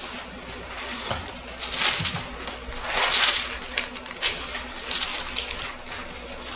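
Thin Bible pages being leafed through and turned by hand, rustling in irregular bursts, loudest about two and three seconds in.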